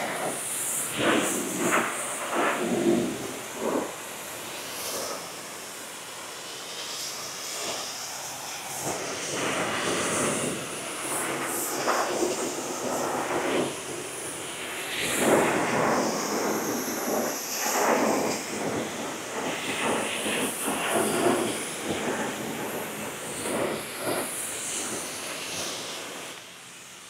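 Pressure-washer wand at a self-serve car wash spraying water, the noise rising and falling in uneven surges; it stops shortly before the end.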